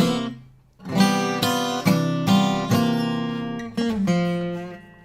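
Acoustic guitar strummed chords: a chord rings and fades out in the first moment, then after a short gap comes a run of strums about two a second, with the last chords left to ring near the end.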